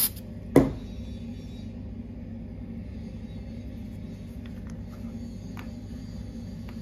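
A short hiss from an aerosol spray can at the start, then a single loud thump about half a second in. After that a steady low rumble, with a few light clicks of small laser-cut plywood hinge parts being handled.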